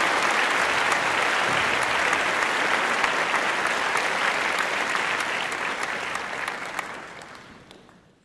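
Audience applauding, a dense clatter of many hands with sharp individual claps standing out; it fades away over the last couple of seconds.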